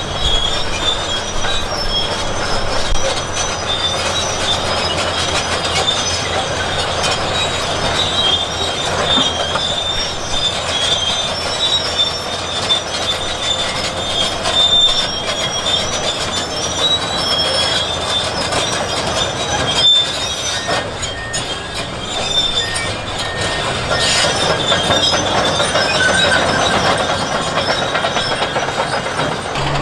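Bulldozer working, its steel crawler tracks squealing and clanking steadily over the low, steady run of its diesel engine.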